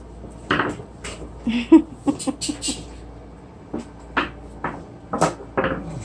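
A string of short, irregular knocks and clatters as hard tools and metal grill parts are picked up, set down and knocked together.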